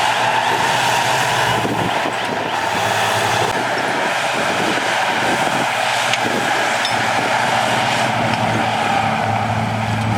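Heavy earthmoving machinery's diesel engine running steadily, with a constant high whine over the engine note.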